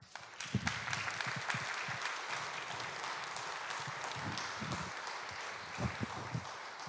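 A congregation applauding, a dense patter of many hands clapping that starts at once and slowly thins out near the end.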